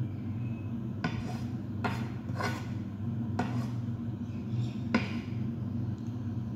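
Wooden spatula stirring minced chicken in a non-stick wok, scraping and knocking against the pan about five times, over a steady low hum.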